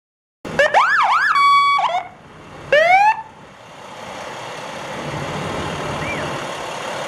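Fire engine siren starting suddenly about half a second in: a few quick up-and-down wails, a held steady tone, then one short rising whoop about three seconds in. After that the fire engine's engine is heard running and growing louder as it approaches.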